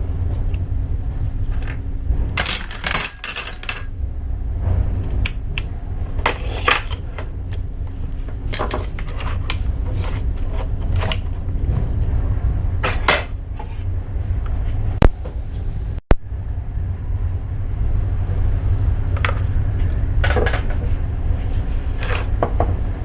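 Metal parts and tools clinking and clattering now and then over a steady low hum.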